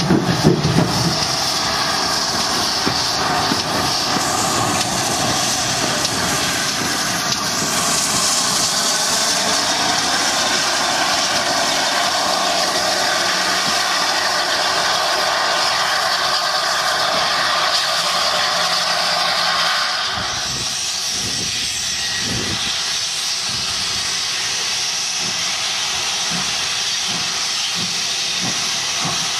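GWR 2884 Class 2-8-0 steam locomotive No. 3822 with steam escaping in a loud, steady hiss. About twenty seconds in the hiss eases a little and irregular low thumps come through.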